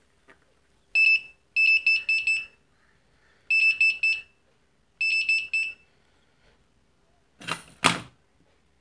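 Buzzer of an infrared remote tester beeping in four short bursts of rapid high beeps as it picks up a remote's button presses. Two sharp knocks follow near the end.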